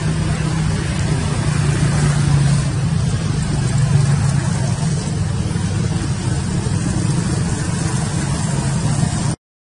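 A motor vehicle's engine running steadily: a continuous low hum under a broad rushing noise.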